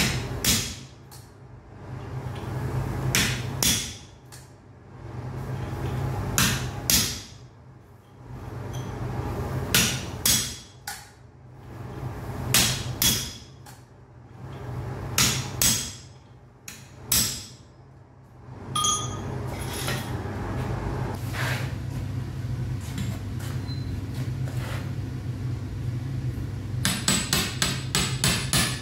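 Hammer blows on hot iron at the anvil, coming in short groups every few seconds over a steady low hum. The blows stop for several seconds of steady noise, then a fast run of light, rapid hammer taps follows near the end.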